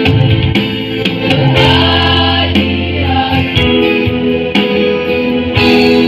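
A choir singing in harmony with instrumental accompaniment and percussive accents. A held chord cuts off right at the end.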